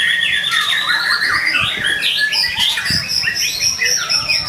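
White-rumped shama (murai batu) in full, continuous song. It gives a long whistle that rises at the start, many quick chirps and trills, then a high whistle held steady from about halfway through.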